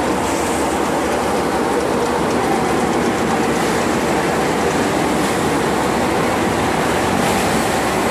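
Tractor-powered paddy thresher running, a steady mechanical rattle and hum as rice paddy is fed through it.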